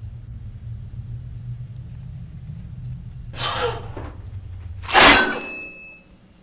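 A steady low hum, then a noisy crash about three and a half seconds in and a louder, sharper crash about five seconds in with brief ringing after it. The hum stops at the second crash.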